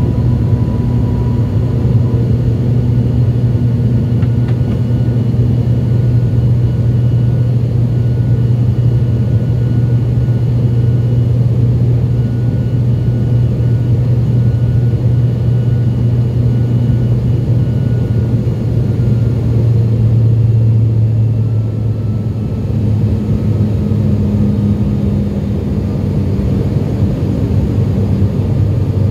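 Steady cabin drone of an ATR 72-500's Pratt & Whitney Canada PW127 turboprop engines and propellers, heard from a seat beside the wing during the climb after takeoff. The low hum is loud and even, dipping slightly in level and pitch about two-thirds of the way through.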